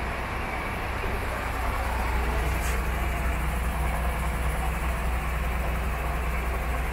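MAN TGX 26.540 truck's 12.4-litre inline-six diesel idling steadily: an even low rumble.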